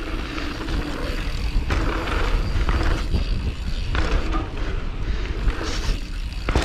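Mountain bike ridden fast down a dirt trail: knobby tyres rolling and crunching over packed dirt, with wind rumbling on the microphone. The tyre noise swells about two seconds in and again about four seconds in.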